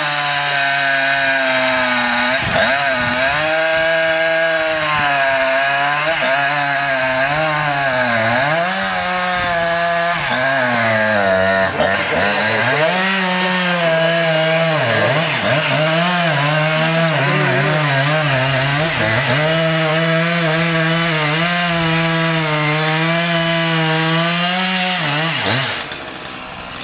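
Chainsaw running under load as it cuts through a walnut trunk, its engine pitch dipping and recovering again and again as the chain bites into the wood; it stops near the end.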